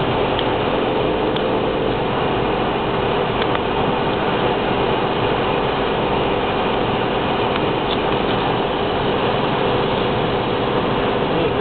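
Car cruising at motorway speed, heard from inside the cabin: a steady mix of engine hum and tyre noise on a wet road.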